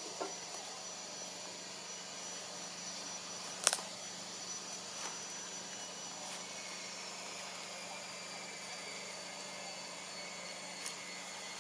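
Steady background hiss with a faint high whine that slowly drops in pitch, broken by one sharp click a little under four seconds in and a few fainter clicks.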